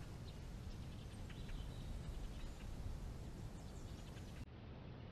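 Birds chirping in short, scattered calls over a steady low rumble of outdoor ambience. About four and a half seconds in, the sound changes abruptly as the chirps and the high end cut out.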